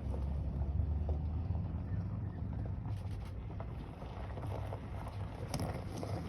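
A vehicle engine idling with a low, steady rumble.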